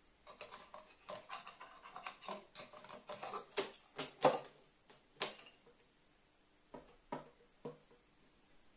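A carrion crow working a small plastic bottle with its beak on a metal-sheeted cabinet top: a run of clicking, knocking and clattering, the loudest knocks about four to five seconds in, then a few separate lighter taps near the end.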